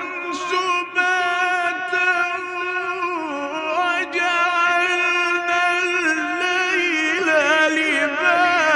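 Male Quran reciter's voice in mujawwad-style recitation, holding long, high melodic notes with quivering, ornamented pitch turns, and a brief break about four seconds in.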